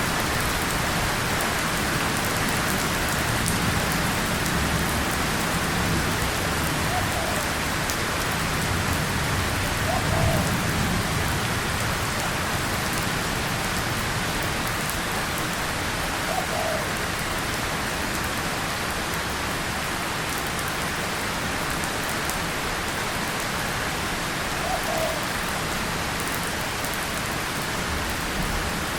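Steady heavy rain falling on a tin surface and leaves, a continuous even patter. About ten seconds in comes a brief low swell, likely faint distant thunder.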